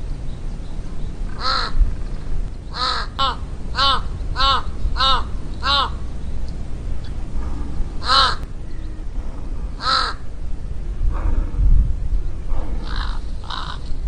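A large black corvid cawing loudly: a run of about six harsh caws in quick succession, then single caws spaced a couple of seconds apart, the last two fainter.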